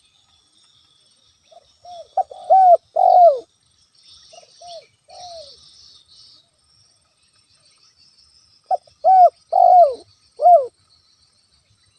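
Spotted dove (tekukur) cooing. A phrase of several arching, falling coo notes comes about two seconds in, followed by a few softer notes. After a pause, another phrase of four or five coos comes near the end.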